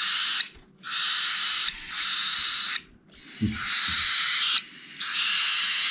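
Baby cockatiels' raspy, hissing food-begging calls during hand-feeding, in four drawn-out stretches with short breaks between them.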